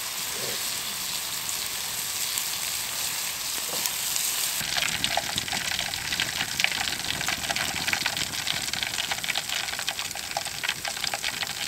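Frozen bacon sizzling and steaming in an aluminum foil pan over a campfire, a steady hiss. From about five seconds in, many quick crackles and pops join it.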